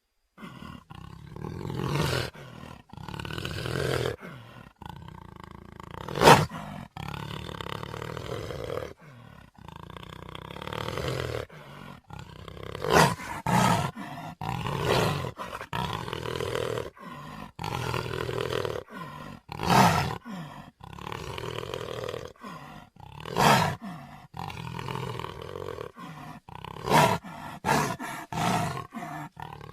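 A string of roaring creature sound effects, each cut off by a short break, with several sharp loud hits among them; the loudest hit comes about six seconds in.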